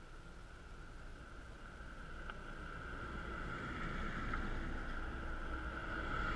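A car approaching from behind on a gravel road, its engine and tyres growing steadily louder until it passes close by at the end.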